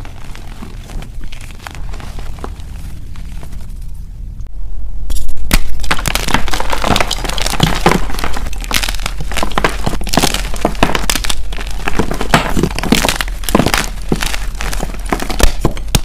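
Dyed gym chalk crumbled by hand: soft crumbling of loose chalk powder, then, about four and a half seconds in, louder as chalk blocks are snapped and crushed in the fingers, a dense run of sharp cracks and crunches.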